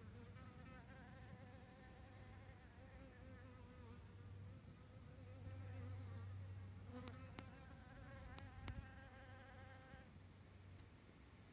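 Faint, slightly wavering buzz of a honeybee's wings in flight, stopping about ten seconds in. A few light clicks come between about seven and nine seconds.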